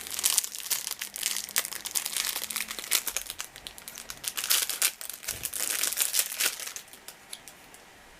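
Packaging being handled and crinkled in rapid irregular crackles, stopping about seven seconds in.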